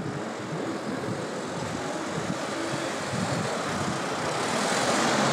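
A vehicle passing, its rushing noise swelling louder toward the end over the general hum of street noise.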